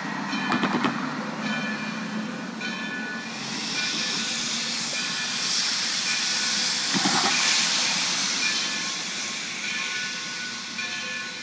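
Black River & Western No. 60, a 2-8-0 steam locomotive, letting off a long hiss of steam that swells from a few seconds in and fades near the end. A ringing tone repeats in short bursts throughout.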